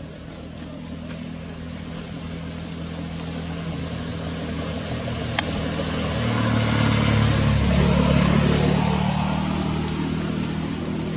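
A motor vehicle drives past. Its engine grows louder over several seconds, is loudest about seven or eight seconds in, then drops in pitch and fades as it goes by. A single sharp click is heard about five seconds in.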